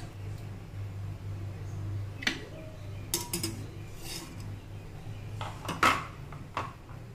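Several short, sharp clinks and knocks of kitchenware, the loudest about six seconds in, over a steady low hum.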